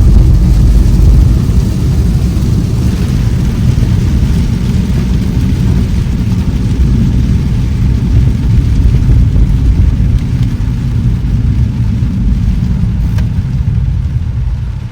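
Steady low rumble of a BMW E46 318i's four-cylinder car on the move, heard from inside the cabin: engine and road noise, easing off slightly near the end.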